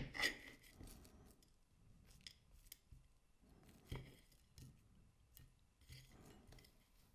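Light tableware sounds at a table while cake is being eaten: a sharp clink with a short ring just after the start, then scattered light clicks and a couple of soft knocks.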